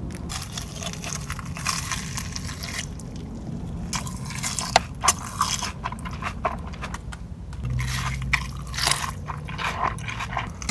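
Close-up biting and chewing of crispy fried food, a run of sharp crunches and crackles.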